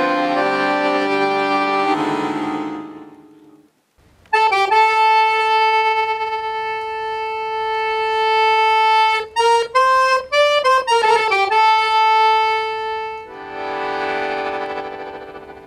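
Solo piano accordion. A full chord holds and fades away, then after a short pause a single melody note is held for several seconds, followed by a few quick notes and another held note. Near the end a fuller chord swells and fades.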